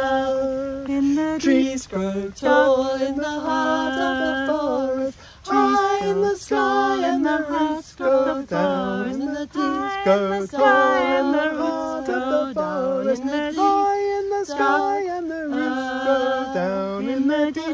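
Two women and a man singing a round unaccompanied, their voices overlapping in harmony on held, changing notes.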